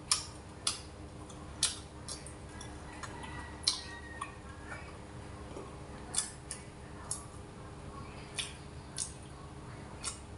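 Chewing banana-peanut candy wrapped in crisp rice paper: sharp crunches of the rice paper, about ten of them at uneven intervals, over a faint steady hum.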